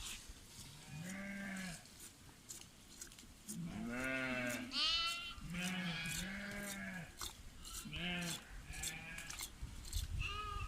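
Sheep bleating repeatedly, several calls in a row, one of them higher-pitched, with faint short ticks between them.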